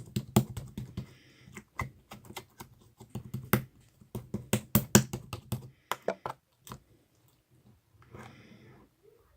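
Hands pressing and poking slime, making a quick, irregular run of sharp clicks and pops, with a softer squishing stretch a little before the end.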